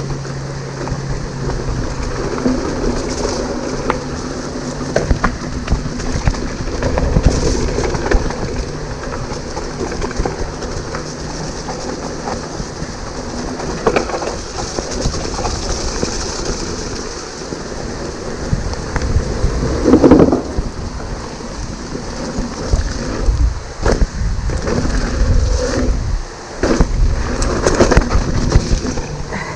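Hardtail mountain bike ridden fast down a dirt trail, heard from a camera on the rider: steady wind noise and tyre rumble on dirt, with frequent knocks and rattles from the bike over bumps and a loud thump about twenty seconds in.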